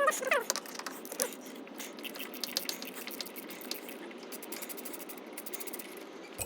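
Ratchet wrench clicking in quick runs while a bolt is backed out of the engine block, with a short metallic squeak near the start. The mechanic suspects this engine-mount bolt's thread in the block is stripped.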